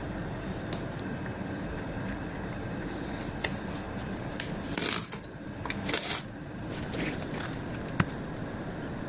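Cardboard pieces being handled and pressed together, with light rustles and ticks, then two brief scraping rustles about five and six seconds in and a sharp click near the end, over a steady background hiss.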